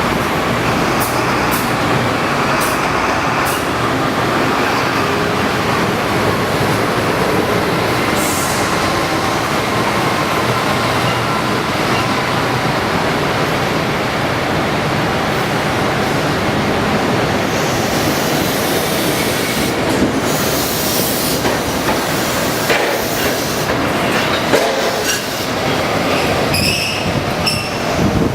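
Toyohashi Railway Mo780-class tram running along its track: a steady rumble of steel wheels on rail with some squealing. A few sharp clicks sound near the end.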